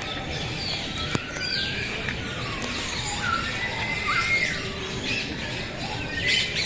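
Many aviary birds calling over one another: squawks mixed with short whistled chirps, some sliding up or down in pitch, with a denser burst of calls near the end.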